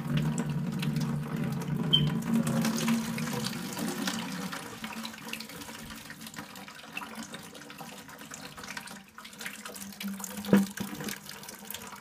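Water draining out of a tankless water heater's valve into a plastic bucket, splashing and running steadily, heavier at first and tapering off as the heater empties. A single knock near the end.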